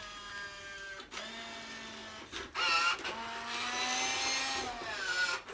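Robosapien V2 toy robot's geared electric motors whining as it moves its arms and body to lower itself onto its back. The whine comes in several runs, stopping and restarting about a second in and again around two and a half seconds, and one long run rises slowly in pitch before a short drop near the end.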